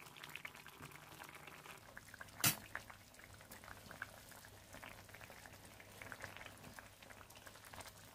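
Coconut-milk red curry simmering in a pan, a faint continuous bubbling with many small pops. One sharp click comes about two and a half seconds in.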